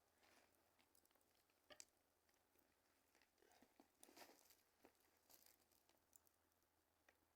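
Near silence, with faint scattered clicks and crunches.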